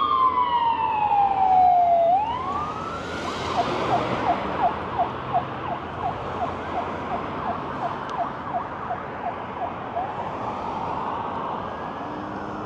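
Emergency vehicle siren. A long falling wail rises again after about two seconds, switches to a fast yelp of about three short sweeps a second, and near the end goes back to a slow rising wail.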